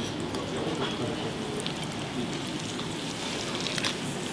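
Butter sizzling and crackling in a stainless steel frying pan, with scattered small clicks of metal tweezers against the pan.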